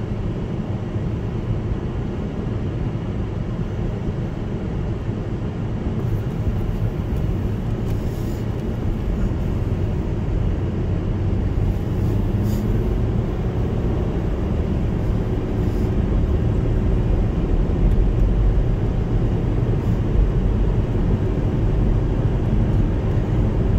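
Steady low rumble of engine and tyre noise heard from inside a vehicle's cabin while driving, growing slowly louder as it gathers speed.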